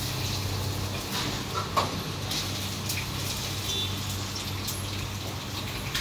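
Busy coffee-shop background: a steady low hum with scattered clinks and clatter, the sharpest a little under two seconds in.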